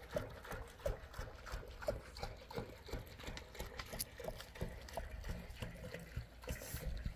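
Young goats drinking from a metal basin, a run of irregular wet lapping and slurping sounds.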